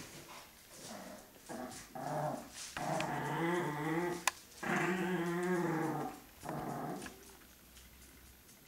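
Small dogs, chihuahuas, growling in several drawn-out, wavering stretches, the longest about a second and a half, with a short sharp click about four seconds in.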